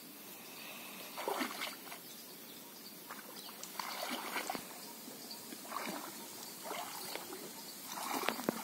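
Shallow floodwater sloshing and splashing around the legs of people wading through a flooded rice paddy, in short irregular bursts, with a louder cluster near the end.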